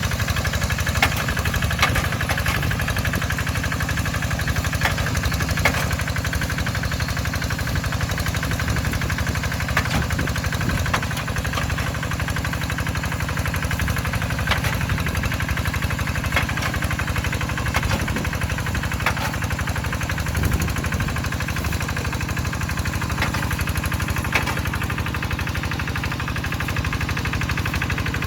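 Kubota RD85DI-2s single-cylinder diesel engine of a two-wheel hand tractor running steadily with a rapid even chugging, with a few sharp clacks.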